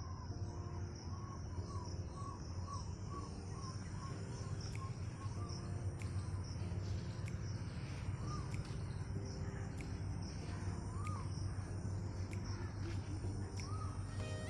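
Rural morning outdoor ambience: a bird repeats short chirps about twice a second for the first few seconds, then calls only now and then. Behind it run a steady insect drone, a low steady hum and scattered faint clicks.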